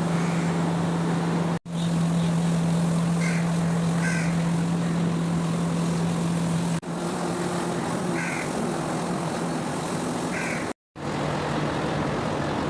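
Steady low machine hum, broken abruptly three times, with a few short high chirps over it.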